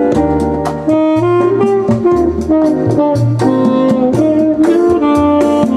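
Saxophone-led jazz recording played back through B&W DM601 S3 loudspeakers driven by RCF AM-30 valve amplifiers. Held horn notes sit over a walking bass line and a steady cymbal beat.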